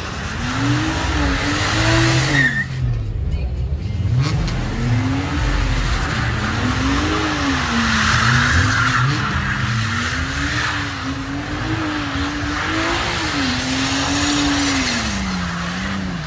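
A car doing donuts on wet asphalt: the engine revs rise and fall over and over while the spinning tyres squeal. There is a brief lull in the tyre noise about three seconds in.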